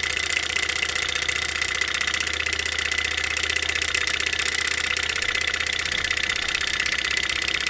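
Small alcohol-fired Stirling engine kit running fast, making a rapid, steady clatter with a steady high whine alongside. It is turning a small DC motor as a generator that lights a strip of LEDs.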